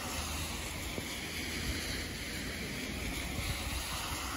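Car tyres hissing on a wet road as cars drive past, with wind rumbling on the microphone.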